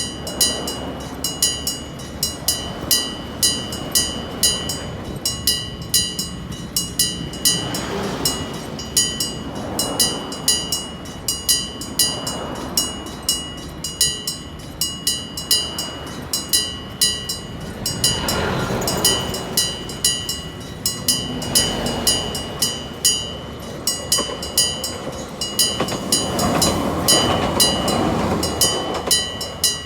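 Mechanical striking-bell level-crossing warning ringing, a hammer striking the bell about twice a second. The rumble of a train or tram passing over the crossing rises and falls several times, loudest near the end.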